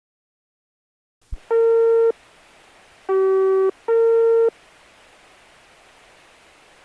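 Japanese municipal disaster-prevention radio broadcast picked up on a receiver as it comes on: a click, then a steady hiss and three loud, steady electronic tones, high, low, high, each about half a second long.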